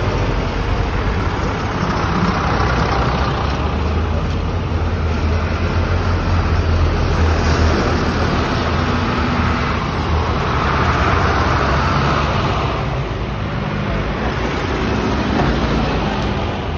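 Large diesel farm tractors driving past close by in procession, engines running with a steady low drone. The sound swells and fades as each tractor goes by.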